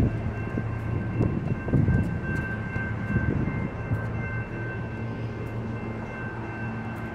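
Nippon Sharyo diesel multiple unit idling at the platform: a steady low diesel hum with a thin, steady high whine over it.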